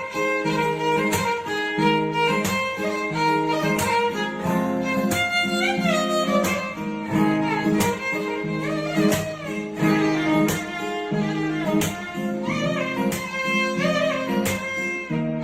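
Background music: a melody that slides between notes, over a steady beat.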